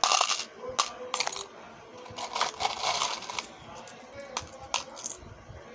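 Small gold-tone metal jewellery findings (bails and bead caps) clinking against each other and the plastic compartment box as a hand picks through and drops them: short clattering runs, the longest in the middle.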